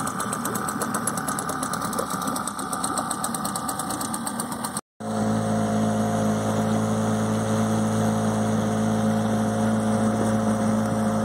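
Small Hidea outboard motor on a fishing kayak running at idle, then, after a short break about five seconds in, running steadily under way at one even pitch.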